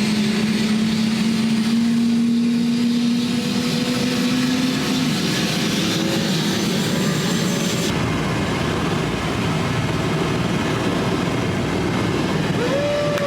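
Tour helicopter's turbine and rotor running loud and steady, a humming tone rising slightly in pitch over the first few seconds.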